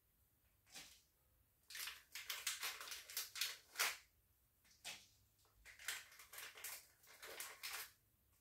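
Crinkling and rustling of plastic candy packaging as jelly candies are handled. It comes in two longer runs of quick crackles with quiet gaps between them.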